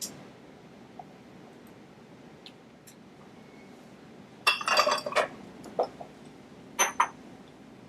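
Glass clinking: a quick cluster of sharp clinks, a single clink, then two more near the end.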